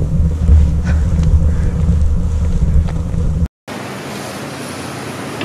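Wind buffeting the camera's microphone: a loud, unsteady low rumble that cuts off suddenly about three and a half seconds in, followed by a quieter steady hiss.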